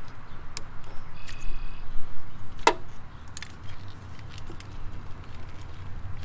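Small sharp clicks and rattles of a plastic wiring-harness connector being worked loose from the boost control solenoid by hand, the loudest click about two and a half seconds in, over a low steady rumble.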